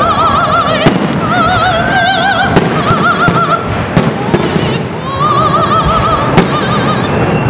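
A fireworks display going off: sharp bangs at irregular intervals over a continuous crackle of bursting shells. Music plays underneath, with a voice holding long operatic notes with a wide vibrato.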